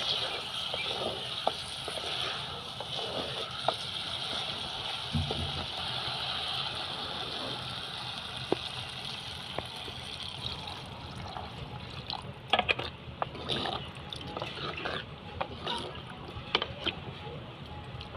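Cauliflower and potato curry cooking in a hot pot, a steady hiss with a few sharp knocks of a wooden spatula, while water is poured in from a plastic bottle. The hiss dies away about eleven seconds in, and a run of light knocks and splashes follows as tomato slices are dropped into the liquid.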